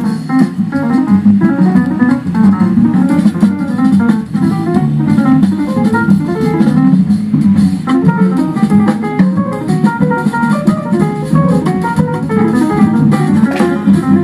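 Music: quick plucked guitar notes over a steady low accompaniment, with light drums.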